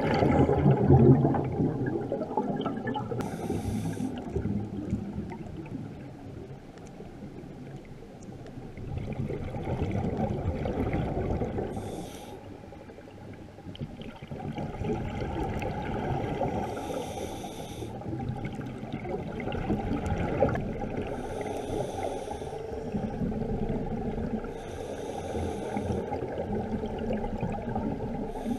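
Scuba breathing underwater, heard muffled through a camera housing: a low, bubbly wash of exhaled air with a short hiss from a regulator every few seconds.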